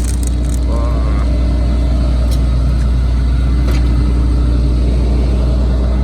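Combine harvester running with a steady, loud low drone. A few light clicks sound over it.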